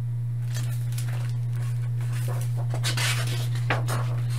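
Pages of a hardcover picture book being turned and handled, a papery rustling with a few small clicks, busiest about three seconds in. A steady low hum runs underneath.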